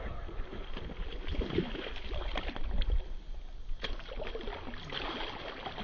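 Scattered light knocks and clicks of handling on a fishing kayak over a low rumble, with a faint steady high tone.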